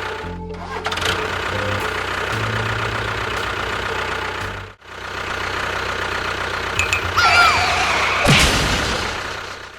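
A small motor runs steadily over background music, cutting out briefly about five seconds in. Short gliding whistle-like tones come in about seven seconds in.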